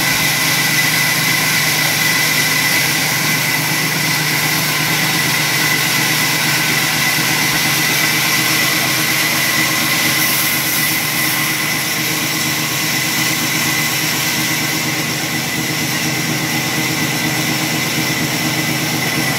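Sawmill saw machinery running steadily, a constant mechanical hum with a high whine.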